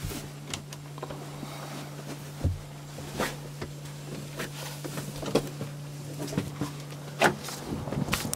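Scattered knocks and a few dull thumps from a person climbing up and out through an overhead deck hatch, over a steady low hum that stops near the end.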